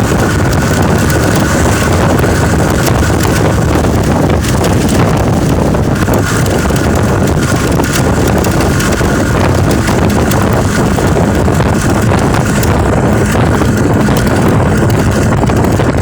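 Steady, loud wind buffeting the microphone over a low rumble, with a faint steady whine throughout.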